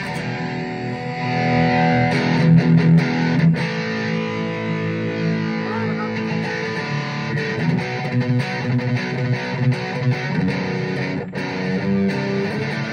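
Les Paul-style electric guitar with Washburn humbucking pickups played with a distorted (overdriven) tone, chords and picked notes sustaining and changing every second or two.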